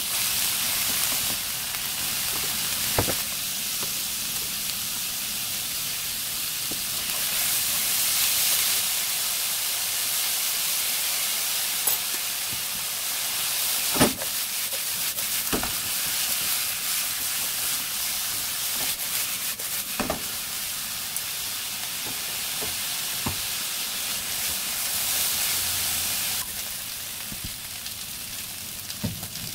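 Julienned potatoes and carrots sizzling in hot oil in a nonstick pan as they are stir-fried, with a few sharp knocks, the loudest about halfway through. The sizzle drops a little near the end.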